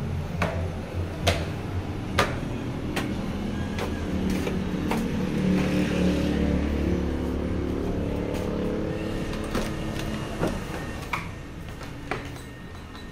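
A motor vehicle's engine rumbling as it passes, swelling to its loudest in the middle and fading near the end, with footsteps knocking about once a second.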